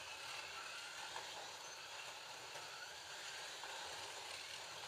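Digital Scalextric slot cars running laps: a steady whir of their small electric motors and wheels on the plastic track.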